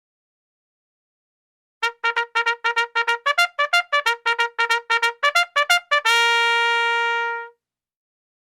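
Military bugle call: starting about two seconds in, a quick run of short tongued notes jumping between a few pitches, about six a second, ending in one long held note that cuts off near the end.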